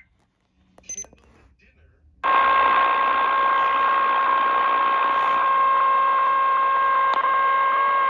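Steady electronic alert tone through a small portable radio's speaker, starting abruptly about two seconds in after a brief click. It is an Emergency Alert System attention tone announcing a required monthly test.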